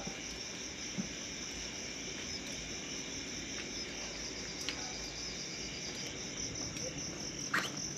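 Crickets trilling steadily in a continuous high, finely pulsing chorus. A short, higher chirp stands out near the end.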